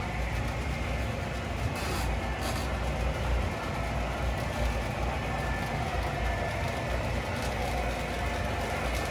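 O gauge model trains running on the layout's track: a steady rumble of wheels and motors.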